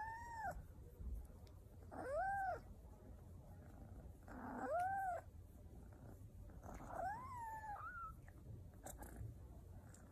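Kitten meowing four times, about every two to three seconds. Each meow is short and rises then falls in pitch; the last is a little longer and wavers as it falls.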